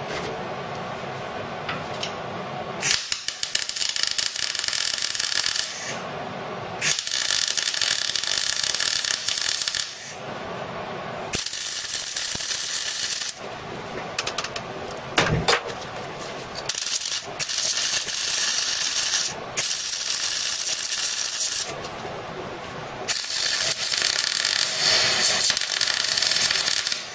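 MIG welder laying plug welds on steel chassis legs: crackling bursts of a few seconds each, about six or seven in a row with short pauses between.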